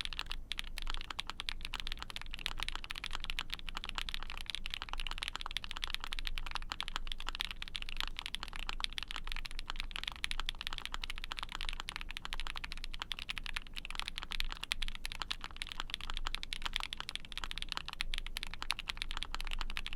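Continuous fast typing on a mechanical keyboard: an ai03 Vega with a POM plate, GMK keycaps and lubed "Milky Ayara" Frankenswitches (SP-Star Ayara bottom housings, cream stems, Milky OP black tops). The keystrokes run as a dense, even stream of clicks with a soft bottom-out.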